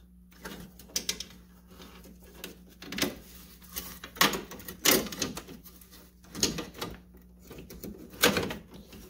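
Irregular knocks and clicks of metal and plastic parts being handled as an aluminium front cross member is set in place over a car's radiator fan shroud, the sharpest knocks a few seconds in and near the end.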